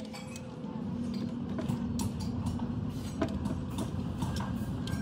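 A steady low mechanical drone with a few faint clicks scattered through it.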